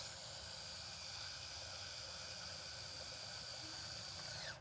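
Canon EOS 500N film camera's motor pre-winding a freshly loaded 35mm roll, a faint steady high whine over hiss that winds down with a short falling pitch near the end as the film reaches its start position.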